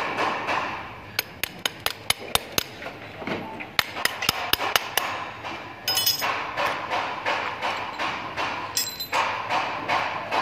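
Hammer blows knocking the front axle out of an electric scooter wheel: two quick runs of sharp strikes, about five a second.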